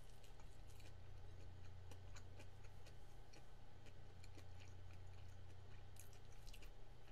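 A person chewing a mouthful of cheese-filled rice ball with mouth closed: faint soft clicks and squishes, a cluster of them about six seconds in, over a steady low hum.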